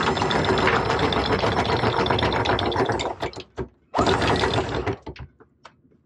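Sailboat's anchor windlass hauling in the anchor chain, its motor whirring with the chain rattling over the gypsy. The haul stops about three seconds in, a few clanks follow, then a shorter second run about four seconds in.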